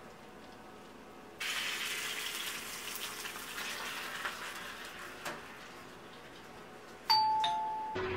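Door intercom chime near the end, a higher note falling to a lower one, announcing a delivery at the door. Before it, a steady hiss starts about a second and a half in and slowly fades.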